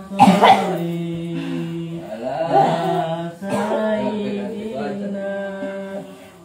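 Slow Arabic devotional chanting of a shalawat, the voice holding long steady notes, with a short loud outburst just after it begins.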